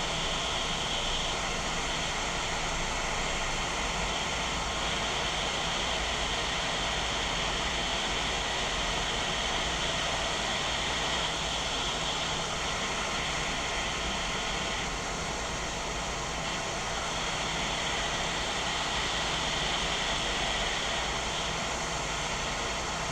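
Hot air rework station blowing steadily on a circuit board, heating the solder to free a component. A continuous airy hiss with a high whine in it.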